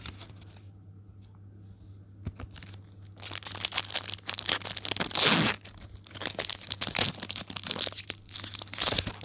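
Foil Pokémon booster pack wrapper being torn open and crinkled by hand: a run of crackling rips that starts about two seconds in and is loudest around the middle.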